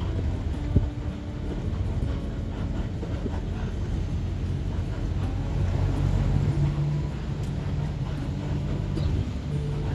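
Steady low rumble of a vehicle engine and road noise, the engine tone rising and strengthening around the middle, with one sharp knock just under a second in.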